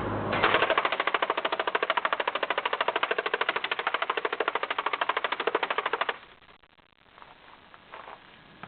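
M15A4 airsoft electric gun (AEG) firing a continuous full-auto burst, about thirteen shots a second, for roughly six seconds, then stopping abruptly. A few faint ticks follow.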